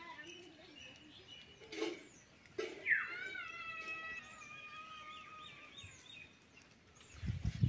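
Rooster's long drawn-out call about three seconds in: a sharp falling start, then a held note for about two seconds, with small birds chirping faintly. A short low rustle comes near the end.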